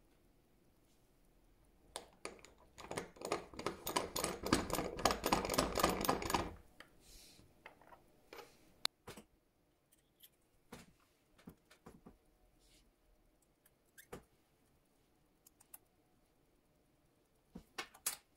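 Small metal clicks and scrapes of tweezers and fingers working the battery hatch on a quartz watch's steel case back. A dense run of rapid clicking and rubbing lasts a few seconds near the start, followed by scattered single clicks and a short flurry near the end.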